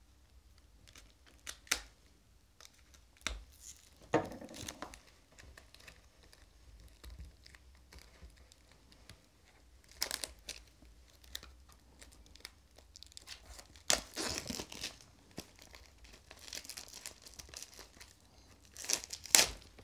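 Plastic shrink-wrap film being slit with a folding knife and peeled off a mediabook case: irregular crinkling and tearing with scattered small clicks, louder about ten seconds in and again near the end.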